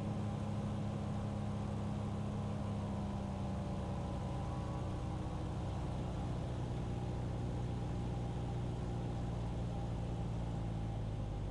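A Cessna 337 Skymaster's push-pull twin piston engines and propellers drone steadily in the cockpit on final approach, their pitch easing slightly a few seconds in.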